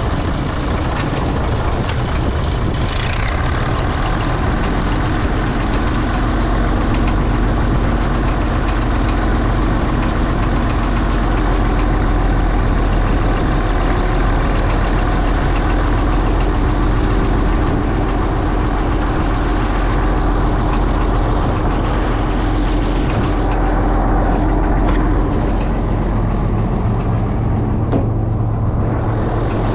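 International Harvester TD24 crawler's 1091-cubic-inch diesel engine running steadily.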